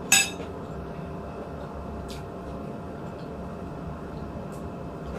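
A single sharp clink of dishware or cutlery just after the start, ringing briefly, then a couple of faint light clicks over a steady low room hum.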